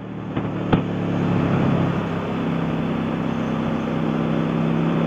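Motorcycle engine running under way with wind rushing past the microphone; the sound builds over the first couple of seconds, with a single sharp click under a second in, then settles into a steady drone.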